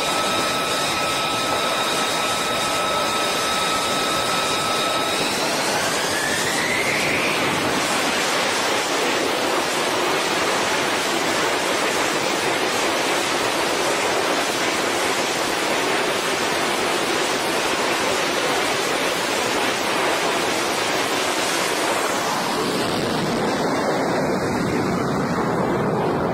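F-35C's Pratt & Whitney F135 jet engine running up on a carrier catapult: a steady whine that rises about five seconds in as the engine spools up to launch power, then a loud steady roar. The roar thins near the end as the jet is catapulted away.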